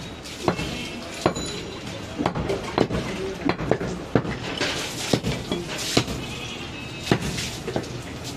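A butcher's long knife chopping and cutting mutton on a wooden chopping block: a series of sharp, irregular knocks, one or two a second.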